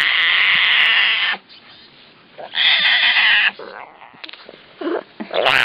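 An animal giving two loud, harsh, raspy calls, the first about a second and a half long and the second about a second, with a shorter quavering call near the end.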